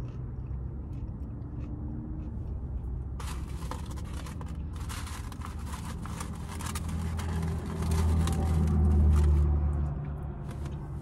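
A steady low engine hum heard from inside a parked car, with a passing vehicle swelling louder from about seven seconds in, loudest near nine seconds, then fading. Close crackling and rustling of takeout food packaging being handled runs through the middle.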